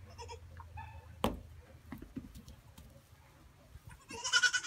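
Baby pygmy goats bleating: a couple of faint short bleats in the first second, then one loud, high, wavering bleat near the end. A single sharp knock comes about a second in.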